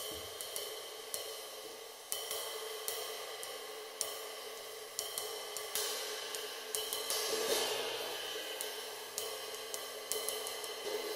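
A 22-inch, 2190 g ARTCYMBAL ride cymbal fitted with one small brass rivet, struck repeatedly with a hickory stick. Each stroke sounds over a continuous ringing wash with the rivet's sizzle, and the wash swells about seven seconds in.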